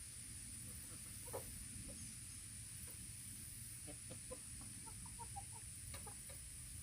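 Chickens clucking quietly: a single short cluck about a second in, then a quick run of short clucks from about four seconds in, over a steady background hiss.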